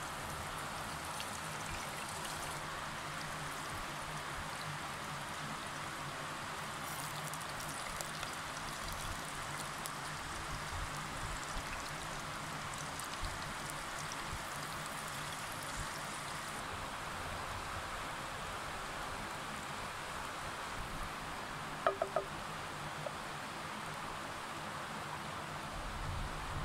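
Potato slices frying in oil in a pot over a wood fire: a steady sizzle with faint crackling. About three-quarters of the way through there is a brief cluster of short high tones.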